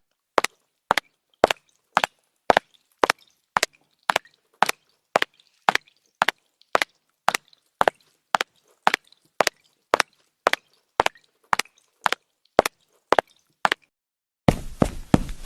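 Sharp, evenly spaced knocks, about two a second, with dead silence between them. Near the end a steady noise sets in with quicker, denser knocks.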